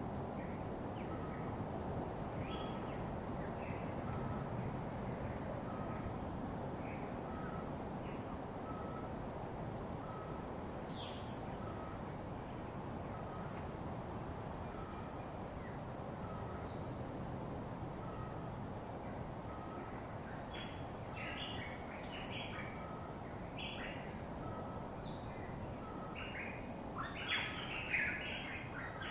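Wild birds calling over a steady background hiss: one short note repeats about once a second while other birds add scattered chirps, growing busier near the end. A constant thin high tone runs underneath.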